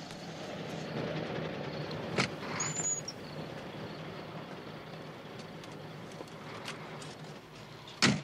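Big-rig truck idling with a steady low hum, a sharp click about two seconds in and a short high squeak just after. Just before the end there is a loud heavy thump as the cab door shuts.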